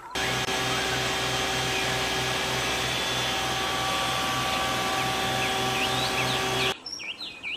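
Water tanker truck's pump running while its roof-mounted water cannon shoots a long jet: a steady rush with a machine hum and a low rhythmic throb, cutting off abruptly near the end.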